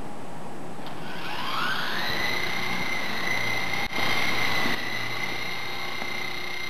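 Small radio-controlled helicopter's motor and rotor spooling up for takeoff: a whine rises in pitch about a second in, then holds a steady high tone as it hovers.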